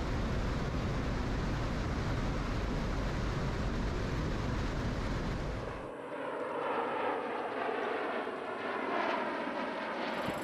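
Steady noise of aircraft in flight, with rotor and engine noise and rushing air, heard from an aircraft flying alongside an MV-22 Osprey tiltrotor. About six seconds in it cuts to a thinner, more distant aircraft sound without the deep rumble, as an Osprey banks away firing flares.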